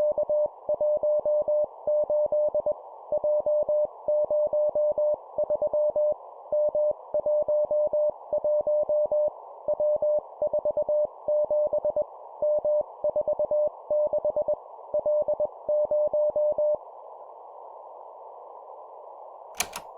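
Morse code (CW) keyed at 20 words per minute: a single steady beep switched on and off in dots and dashes, sending three-character practice groups over a steady narrow hiss like a radio receiver's noise. The keying stops about three-quarters of the way through, leaving only the hiss, and a short click comes just before the end.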